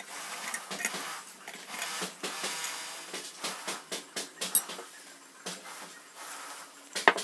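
Brass oil lamp parts being handled: irregular knocks and clinks of metal on metal and on the table, with cloth rubbing in between and a sharp click near the end.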